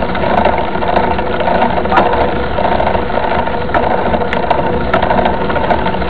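Mountain bike rolling along a dirt road: a steady rumble of tyres and wind on the camera, with frequent small rattling clicks from the bike.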